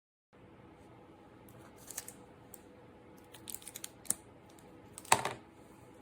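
Scattered light clicks and handling noises of small hard objects, with one louder knock a little after five seconds in, over a faint room hiss.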